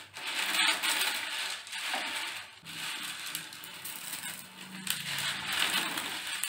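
Crispy deep-fried noodles, coated in corn flour, crackling and snapping as hands crush and break them up on a plate, in uneven bouts with brief pauses.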